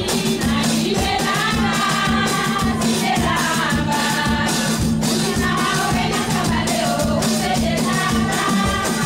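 Music with several voices singing together over a steady beat and a held low note.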